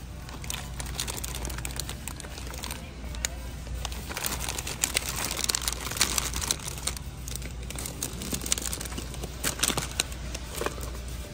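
Plastic wrapper of a family-size pack of sandwich cookies crinkling in irregular crackles as it is handled on a store shelf, busiest in the middle. A low steady hum runs underneath.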